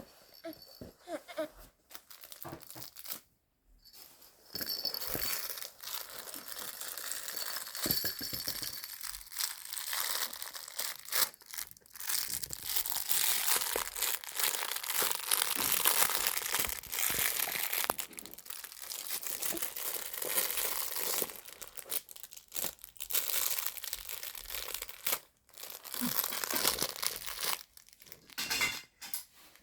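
Crinkling of a cloth baby book's crinkly pages being scrunched and handled, in long bouts with short pauses, starting a few seconds in.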